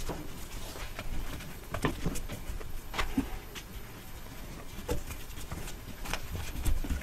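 Exhaust heat wrap being wound by hand around an exhaust pipe: irregular soft rustles and scrapes of the wrap and gloved hands on the pipe, a few sharper ones scattered through.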